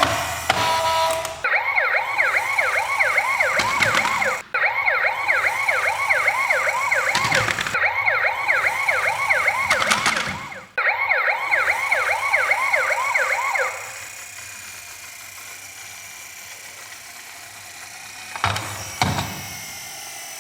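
Emergency-vehicle yelp siren, a fast repeating wail of about three quick sweeps a second, cut by short clicks a few times and stopping suddenly about 14 seconds in. A quieter hiss follows, with a couple of knocks near the end.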